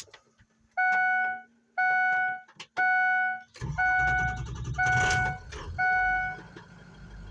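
A chime beeps six times, about once a second. About halfway through, the 6.0 Powerstroke turbo V8 diesel cranks, catches after a slightly long start and settles into a smooth idle, its first run on newly fitted injectors.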